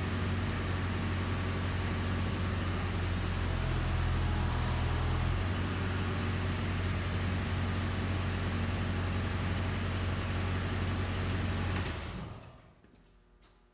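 Kubota KX71-3 mini excavator's diesel engine running steadily, with a higher hiss joining for about two seconds a few seconds in. The engine is shut off about twelve seconds in and dies away.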